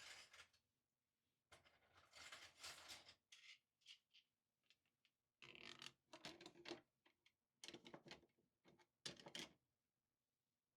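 Cutlery and other kitchen-drawer items being handled and set down, in several short bursts of clattering and rustling, stopping about a second before the end.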